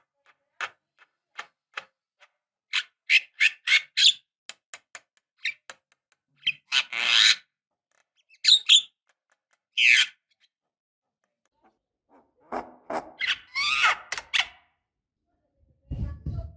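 Javan myna calling: a quick run of short, sharp clicking notes, then a few harsh, grating calls, and near the end a longer harsh chattering run.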